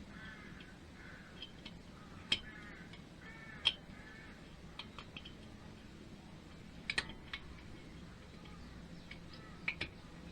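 Occasional sharp metallic clicks and taps of small parts and hand tools being handled during engine reassembly, the two loudest about two and three and a half seconds in, with a pair near the middle and another near the end. A bird calls in short, repeated notes during the first four seconds.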